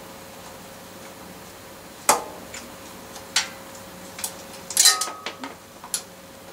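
Sharp metallic clicks and clinks of a hand tool working on a bicycle's V-brake, a handful of separate strikes. The loudest comes about two seconds in, and a quick cluster near the five-second mark ends in a brief ring, all over a faint steady hum.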